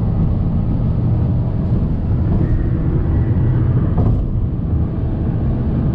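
Steady road and wind noise of a Nissan sedan cruising at highway speed, heard from inside the car: an even, mostly low noise with no breaks.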